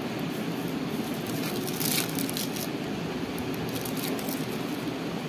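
The foil pouch and electrode and separator layers of a torn-open lithium-ion pouch cell crinkling as they are handled, with one sharper crinkle about two seconds in, over a steady fan-like background hum.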